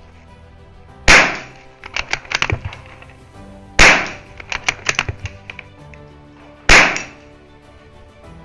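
Savage Mark II FV-SR .22 LR bolt-action rifle fired three times, about three seconds apart. Between shots comes a quick run of clicks as the bolt is worked to chamber the next round. Background music plays underneath.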